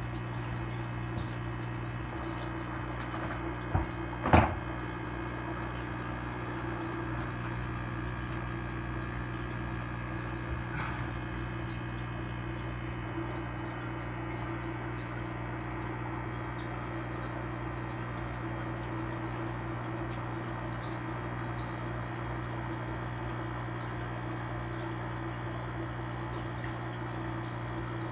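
Steady hum of aquarium pump equipment with a faint wash of moving water. Two sharp knocks about four seconds in, the second louder, and a faint tap near eleven seconds.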